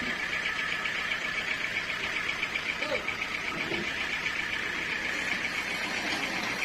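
Sawmill machinery running steadily: an even mechanical whir with a fine rapid pulse, with faint voices underneath.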